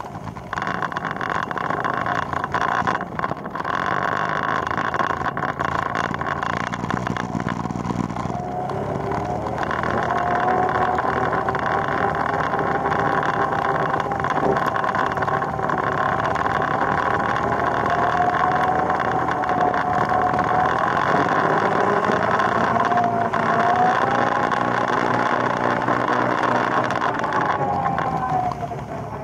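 ATV engine running steadily as it is ridden, its pitch wavering up and down with the throttle and dropping off briefly near the end.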